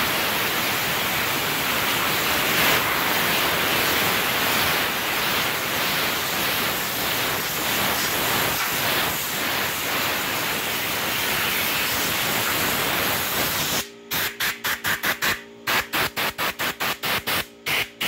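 Compressed-air blow gun at about 90 PSI blasting a steady hiss of air through a window air conditioner's coil fins, blowing the sprayed-on cleaner and loosened grime out. About 14 s in it changes to a rapid series of short blasts, about three or four a second.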